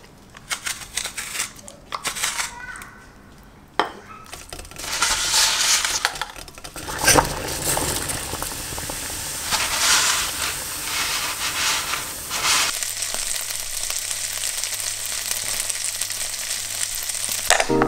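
Kitchen sounds in sequence: a handheld spiralizer crunching and clicking as it cuts a cucumber into strands, then, in the second half, a steady sizzle of dumplings frying in oil in a non-stick pan.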